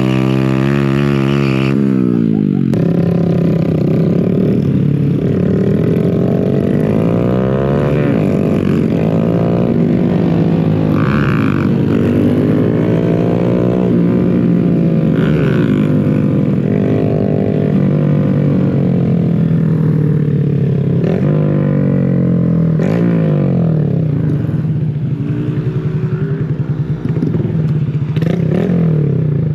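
Honda Grom motorcycle engine under way, its pitch climbing as it accelerates and dropping at each gear change and as it eases off, over and over.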